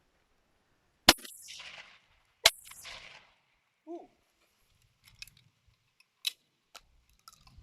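Over-and-under shotgun fired twice, the two shots about a second and a half apart, each followed by a long echo. A few sharp clicks come after.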